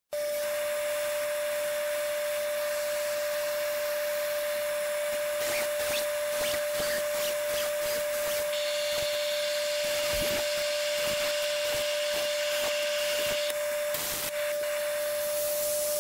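Dust-collection vacuum running with a steady whine. A drill runs for about five seconds from about eight seconds in, with a few knocks of handling before and after.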